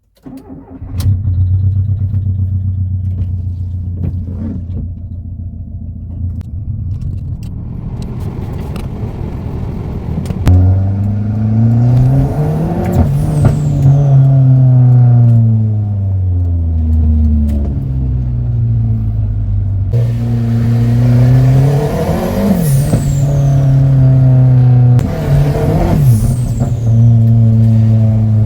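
Turbocharged VW Golf EA111 1.6 8-valve four-cylinder idling steadily, then revved hard several times from about ten seconds in. Each big rev is followed by a high falling whistle as the turbo winds down.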